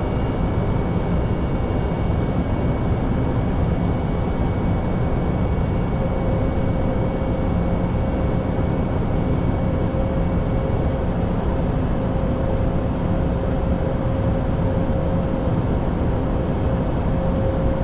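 Steady in-flight cockpit noise of an Airbus A320neo: an even rush of airflow and air conditioning over the engine hum. A faint steady high tone runs throughout, and a second, lower steady tone joins about six seconds in.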